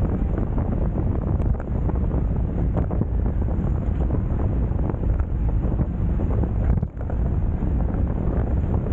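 Wind buffeting the bike-mounted camera's microphone at riding speed: a steady, heavy rumble, with a brief lull about seven seconds in.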